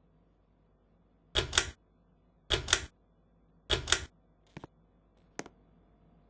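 Clicking from a ceiling fan's pull-chain switch: three sharp bursts about a second apart, each a quick double click with the chain rattling, then two lighter single clicks.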